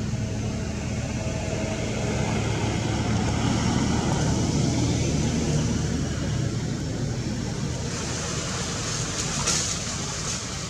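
A motor engine running steadily with a low hum, over a constant background hiss, a little louder for a few seconds in the middle.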